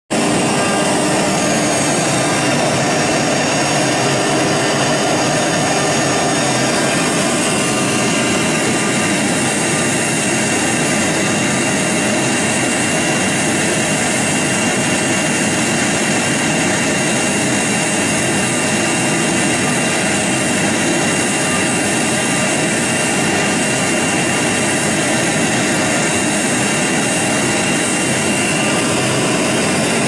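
CNC router spindle running at high speed while its cutter bores a lock hole into the edge of a wooden door: a steady high whine over constant cutting and machine noise.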